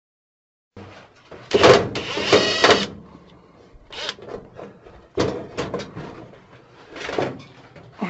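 Ryobi cordless drill-driver whirring in short bursts as it backs out the screws holding a dryer's metal backing plate, with sharp knocks of the tool and panel between bursts. The sound starts about a second in, and the first two bursts are the loudest.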